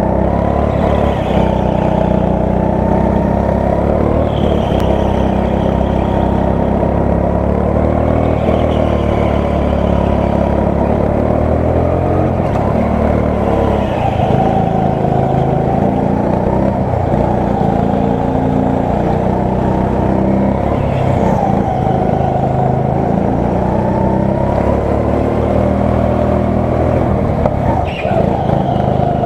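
Biz Karts Evo3 200cc petrol go-kart engine running hard through a lap, its pitch rising and falling every few seconds as it slows for corners and accelerates out of them.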